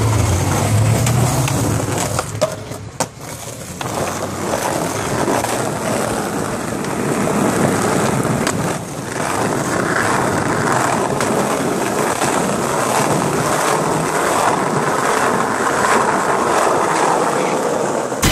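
Skateboard wheels rolling over concrete paving slabs: a steady gritty rumble, broken a few times by sharp clacks of the board.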